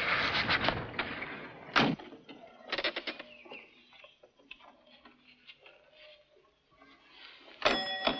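A fading rush of noise at the start, a knock about two seconds in and some light clattering, then near the end a clock's chime is struck and rings on in clear, steady tones.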